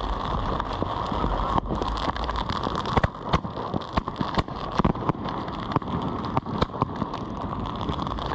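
Fireworks going off: a steady hiss broken by irregular sharp pops and crackles.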